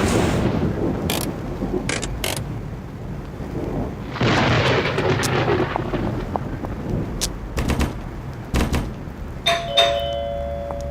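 Thunderstorm sound effect: two long rolls of thunder with rain and scattered sharp cracks. Near the end a two-note chime sounds and holds.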